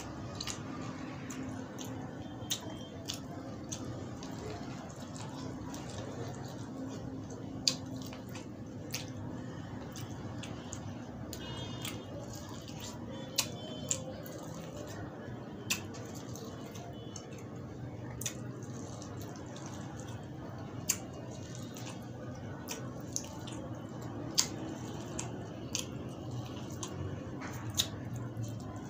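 Close-up eating sounds of boiled corn on the cob: irregular sharp crunches and clicks as kernels are bitten and pulled off, with wet chewing, over a steady low background hum.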